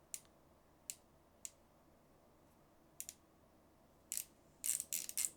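Spool tension knob of a Piscifun Alloy M baitcaster reel being turned, giving quite precise little clicks. A few single clicks come spaced out at first, then quicker runs of clicks near the end.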